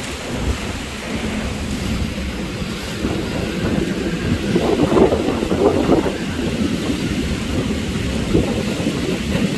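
Hurricane-force wind blowing and buffeting the microphone in a hurricane's eyewall, a heavy gust swelling about four and a half seconds in.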